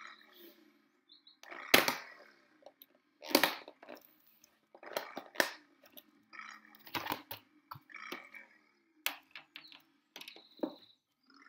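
Clear plastic food containers and lids being handled: a series of sharp knocks and rattles, about six bursts, as the boxes are lifted, nested and set down on the table, over a faint steady hum.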